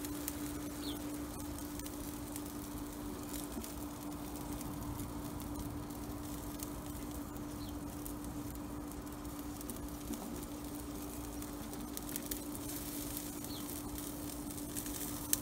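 Chicken wings sizzling and crackling softly on a gas grill's grate over a steady low hum, with a few small clicks.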